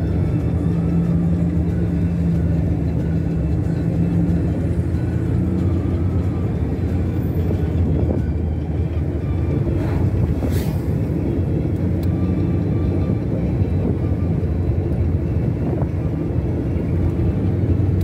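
Car driving on a paved road, heard from inside the cabin: steady engine and tyre noise, with an oncoming motorcycle passing about ten seconds in.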